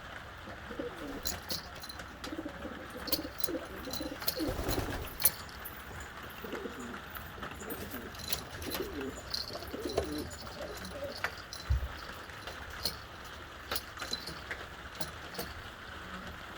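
Pigeons cooing repeatedly, with frequent sharp clicks and taps among them.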